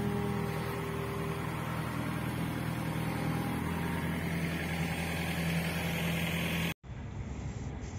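Excavator diesel engine running steadily at a constant speed. Near the end it cuts off abruptly and a quieter, duller background takes over.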